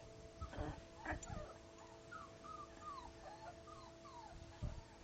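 Puppies whimpering while they play, a run of about eight short, high squeaks, each falling in pitch. Two soft thumps come about half a second and a second in, over a faint steady hum.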